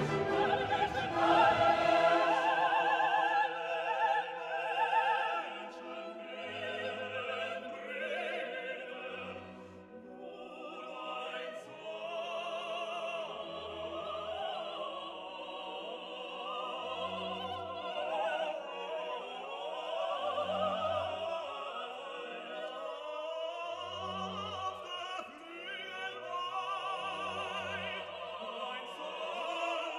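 Background music: an operatic voice singing with vibrato over orchestral accompaniment, with a low bass note recurring every few seconds.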